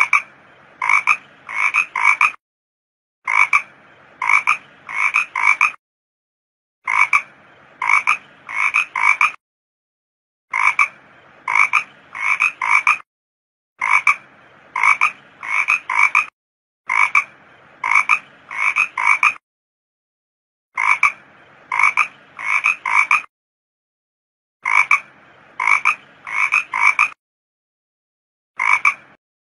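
Frog calls repeating in a looped recording: bursts of about four short calls, roughly half a second apart, every three to four seconds, with dead silence between the bursts.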